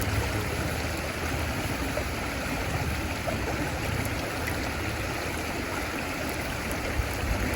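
Wood fire burning steadily in a campfire stand, a continuous rushing with a few faint crackles.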